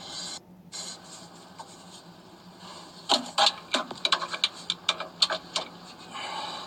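Metal clicks of a hand ratchet wrench in short irregular runs, several a second, tightening the starter motor's mounting bolts from under the car.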